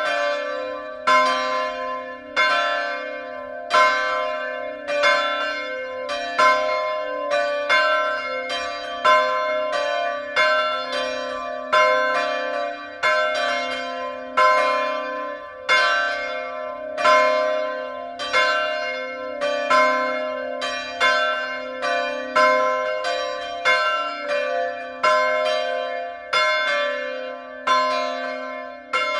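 The two 1957 Petit & Fritsen church bells, tuned c2 and d2, swinging and ringing together in a full peal, their clappers striking in a steady run of strokes about every three-quarters of a second, each stroke ringing on into the next.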